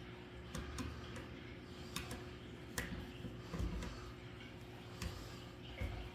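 Scattered light clicks and taps from hands handling an electrical outlet and its wires, irregular and a few seconds apart, over a faint steady hum.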